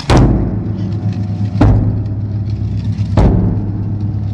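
Large ōdaiko festival drum on a wheeled cart struck three times with a long wooden stick, about one and a half seconds apart, each deep boom ringing on into the next.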